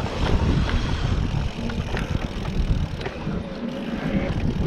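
Mountain bike rolling along a dirt trail: rumble of the tyres and rattling of the bike, with wind buffeting the microphone and a few small clicks.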